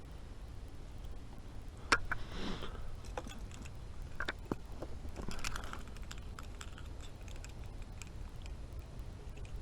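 Scattered light clicks and soft rustles of hands handling a freshly landed fish and fishing gear, with one sharp click about two seconds in.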